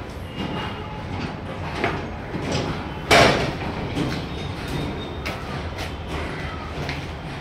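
Construction-site noise: a steady low rumble with scattered knocks, and one loud clatter about three seconds in.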